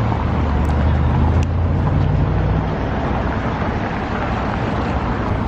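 Street traffic noise, with a motor vehicle's engine humming low and loudest over the first couple of seconds before easing off.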